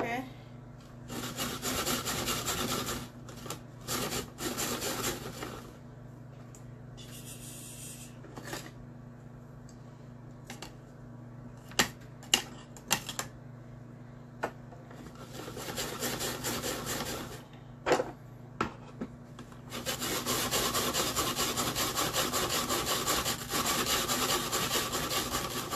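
Carrots being shredded in a hand-cranked rotary drum grater: a rasping grind in spells of a few seconds as the handle is turned, the longest spell near the end. Between the spells come a few sharp clicks and knocks.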